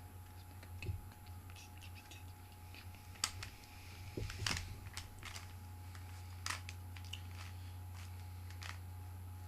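Plastic Rubik's Cube layers being twisted by hand, an irregular run of clicks and clacks with a few louder snaps about three, four and a half and six and a half seconds in, over a steady low hum.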